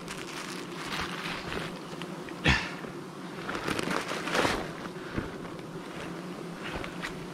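Swarm of wild honeybees buzzing steadily, stirred up as their nest is smoked. A sharp knock about two and a half seconds in, and rustling a second or two later.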